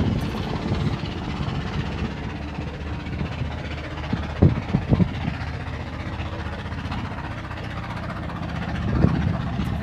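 Marine diesel engine idling steadily, heard across the deck, with a few short knocks about halfway through.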